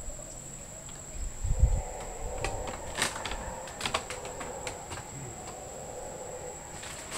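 Mantled howler monkeys howling, a drawn-out droning call that swells and fades, over a steady high-pitched insect buzz. A low thump about one and a half seconds in, and a few sharp clicks around the middle.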